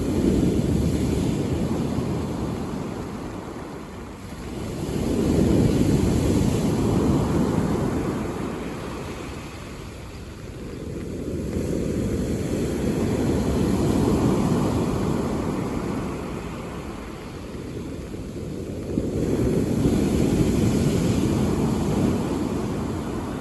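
Mediterranean sea waves breaking on a pebble beach and washing back, a rushing surf that swells and fades about every six seconds, four surges in all.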